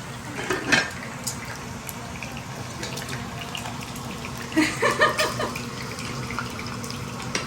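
Boiled eggs frying in hot oil, a steady sizzle with scattered crackles; a utensil clinks against the pot about a second in, and a voice is briefly heard about five seconds in.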